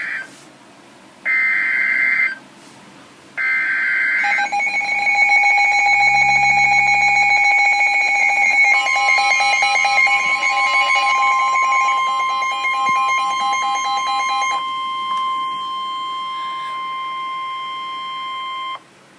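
Emergency Alert System warning for a severe thunderstorm: three short bursts of warbling data tones (the alert header), then long steady alert tones. A second steady tone joins about nine seconds in and the first stops about fifteen seconds in. The tones cut off near the end.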